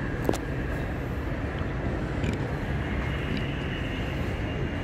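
Steady low rumbling background noise of the model railway exhibition hall, with a few faint clicks.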